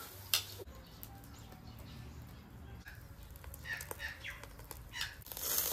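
A sharp click of metal barbecue tongs against the grill grate about a third of a second in, then scattered faint bird chirps in the background.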